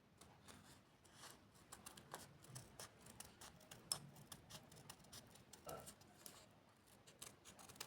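Faint paper crafting: scattered small ticks and rustles of paper being handled and worked, with a slightly sharper click about four seconds in.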